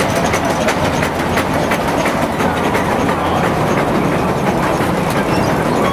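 Atlas stationary steam engine running steadily with its belt drives, a continuous mechanical clatter with rapid ticks running through it.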